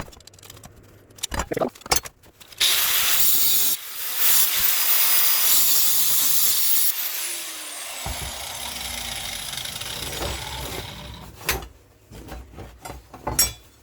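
Angle grinder switched on and grinding on steel in two runs, with a short break in between. It is then switched off, its whine falling as the disc winds down, and afterwards come knocks of metal parts being handled. The grinding takes down a spot on the iron hinge parts so the hinge can seat fully.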